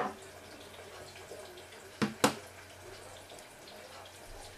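Sharp knocks of hard kitchen items handled on a table: one at the start, then two quick ones about two seconds in, a quarter second apart.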